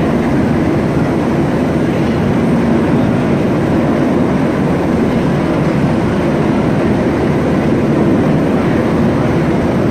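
Coast Guard rescue helicopter hovering overhead: loud, steady rotor and engine noise that holds unchanged throughout.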